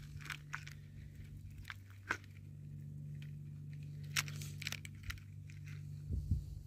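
Small clicks and crinkling of fishing tackle being handled: a steel leader and hooks picked out of a plastic tackle box, over a steady low hum.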